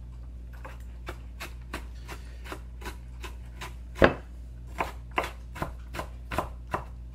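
Chef's knife chopping onion on a wooden cutting board: a steady run of sharp knocks, about three a second, with one heavier knock about four seconds in.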